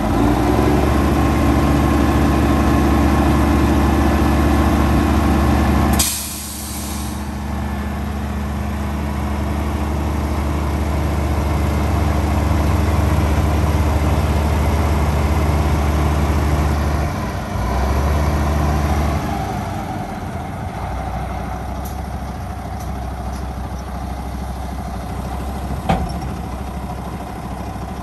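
Diesel engine of a 2000 Mack RD6905 dump truck running while its dump bed is raised and lowered. About six seconds in there is a short, loud hiss of released air, and the engine's note drops. The engine note shifts again later, and there is a single click near the end.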